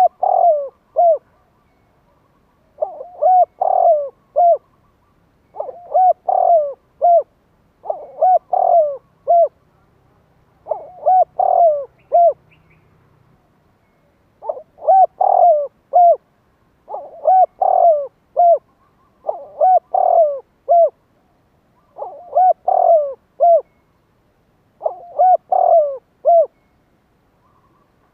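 Spotted dove cooing: about ten phrases of three or four hoarse notes, repeated every two to three seconds with pauses between them. It is the call used as a decoy to draw wild spotted doves in.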